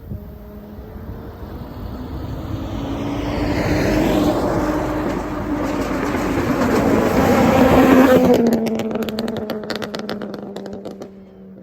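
Volkswagen Jetta 2.5's inline five-cylinder engine, ECU-tuned and straight-piped from the catalytic converter back, pulling hard under acceleration with the note rising for about eight seconds. It then lifts off into a rapid run of exhaust crackles and pops on the overrun, and settles to a steady low run near the end.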